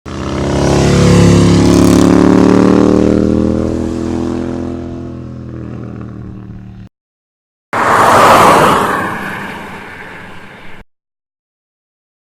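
Motor vehicle passing by, its engine note falling in pitch as it goes past and fades away, cut off abruptly. After a short silence, a second, noisier vehicle pass-by rises quickly and fades.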